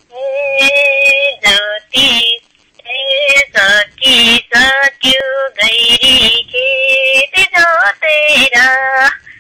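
A high female voice singing long held notes and wavering melodic phrases of a song, the phrases separated by brief pauses.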